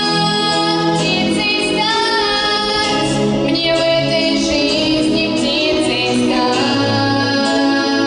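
A young girl singing a song into a microphone over instrumental accompaniment, amplified through the hall's speakers.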